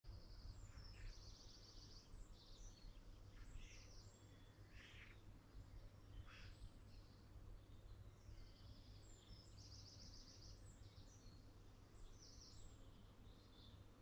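Faint songbirds calling and singing in spring, with short chirps and a fast buzzy trill about a second in and again near ten seconds, over a steady low rumble.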